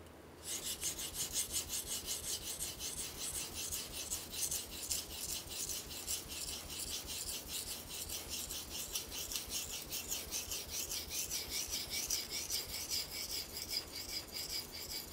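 Steel knife blade being sharpened on a wet Tsushima Nagura Japanese natural whetstone. It is stroked rapidly and evenly back and forth, giving a rhythmic high scraping hiss of steel on stone through slurry. The strokes start about half a second in.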